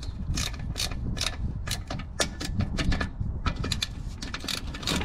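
Socket ratchet with a 10 mm socket clicking as it undoes the bolts that hold a drum-brake wheel cylinder to the backing plate. The clicks come in quick, irregular runs, with a short pause about midway.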